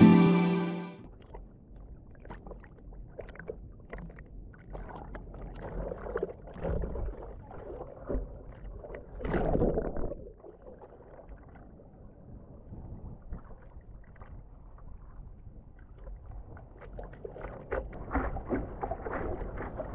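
Sea water sloshing and splashing around a waterproof action camera at the surface of the surf, muffled as the camera dips under and comes back up, with irregular surges and one louder splash about halfway through.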